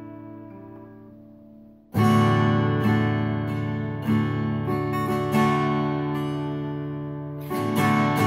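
All-mahogany Tanglewood Crossroads Orchestra acoustic guitar being strummed: a chord rings and fades, then a fresh strum comes in about two seconds in, followed by further chords every second or so.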